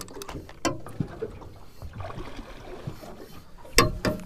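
Water lapping against the hull of a small boat at sea, with a few light knocks and one loud clattering knock near the end.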